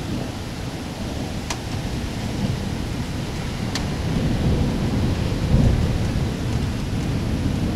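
Thunder rumbling low and continuously, swelling about halfway through, over steady rain. Two sharp ticks come through the rain.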